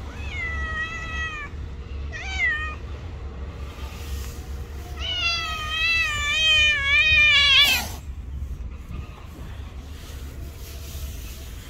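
Stray cats meowing: a meow of about a second at the start and a short meow about two seconds in. From about five seconds in comes a louder, long wavering meow that ends in a sharp rising squeal near eight seconds. A steady low rumble runs underneath.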